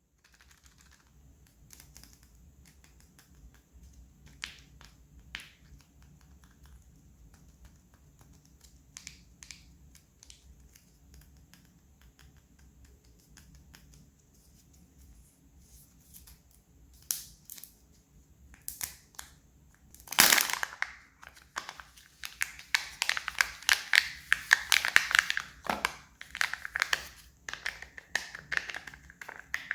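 Kinder Surprise egg being unwrapped: its thin foil wrapper crinkling, crackling and tearing close to the microphone. Scattered quiet crinkles at first, then loud, dense crackling through the last third.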